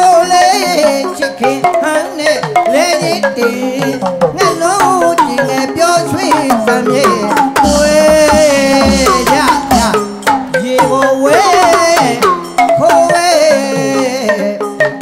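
Burmese hsaing waing music: a solo on the ensemble's circle of tuned percussion, played in fast runs of notes that bend in pitch.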